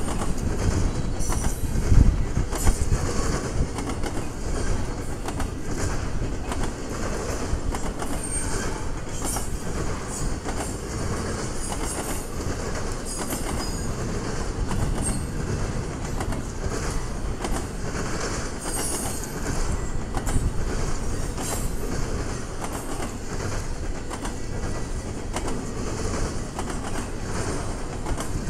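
Double-stack intermodal train's container well cars rolling past: a steady rumble of steel wheels on rail with clickety-clack over the joints and many short high wheel squeals. A louder knock comes about two seconds in.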